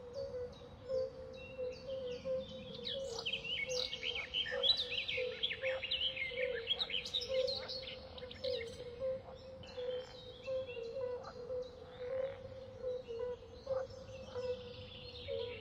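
Small birds chirping and trilling, busiest a few seconds in, over a steady low hum with small regular pips.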